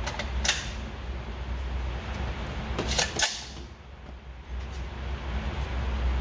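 Two sharp clacks, about half a second and about three seconds in, over a low steady hum at a gun range while a jamming 7.62x39 AR-15 is being worked.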